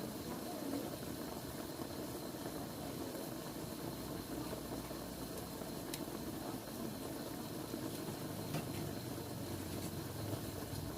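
Chicken adobo simmering in its pan, a steady low bubbling with a few faint clicks.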